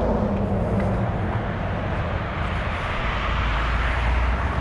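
Steady outdoor traffic noise: a low rumble with a hiss over it, swelling a little near the end.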